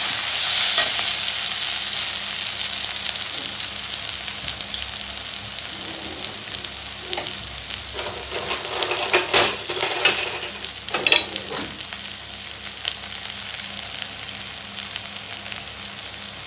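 Sliced onions sizzling in hot oil in a metal kadai, the hiss slowly dying down. In the middle a metal slotted spoon stirs and scrapes against the pan several times.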